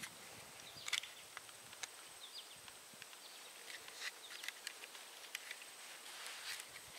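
Faint clicks and scratches of thin tie wire being wrapped around a wooden fishing pole and drawn off its spool, the sharpest click about a second in.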